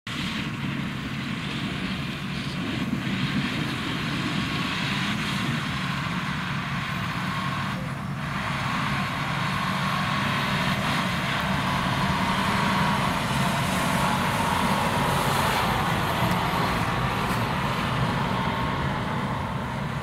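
John Deere 6155R tractor's six-cylinder diesel engine running steadily as it pulls a loaded grain trailer.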